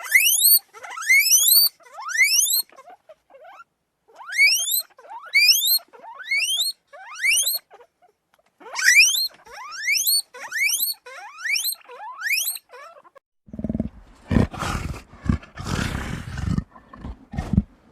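Animal calls: a long series of quick, rising whistle-like calls, mostly in runs of three, then from about two-thirds of the way in a deep, rough roar.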